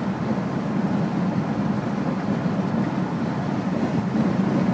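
Steady road noise of a car driving along a highway, heard from inside the cabin: an even low drone of tyres and engine with no changes.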